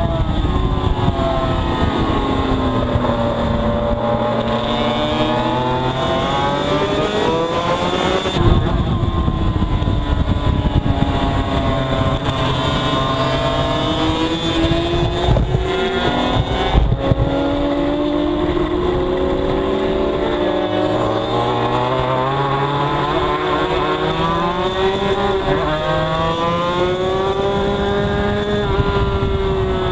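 Yamaha TZ250 two-stroke racing motorcycle engine heard from on board at speed, its pitch repeatedly climbing under acceleration and dropping through braking and corners, over steady wind rush on the microphone.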